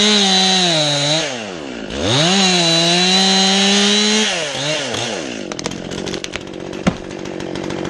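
Two-stroke chainsaw revved to full throttle twice, each burst held about two seconds, then dropping back to a rough idle. A few clicks and one sharp knock come near the end.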